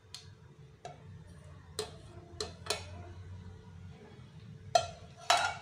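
A cooking pot clinking and knocking against the plastic pudding mould as the last of the cooked chocolate pudding mixture is poured out. There are about seven sharp knocks, and the two loudest come near the end.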